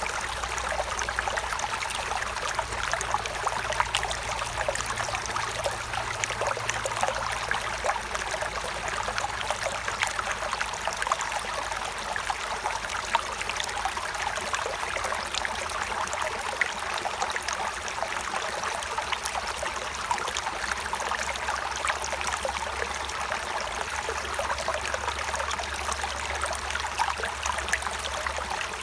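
Stream of clear water running and trickling steadily, with many small splashes and a continuous babble.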